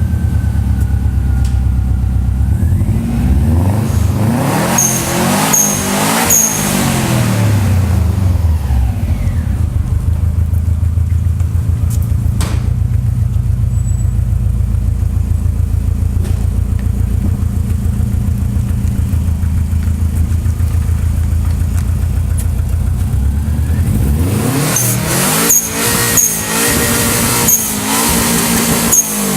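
Subaru Forester's flat-four boxer engine running, revved up and back down about three seconds in and again near the end, with steady running between and a few light ticks during the revs.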